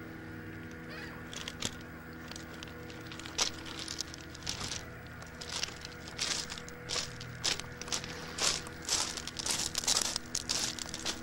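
Footsteps crunching on beach pebbles: irregular crunches, sparse at first and coming thick and fast from a few seconds in.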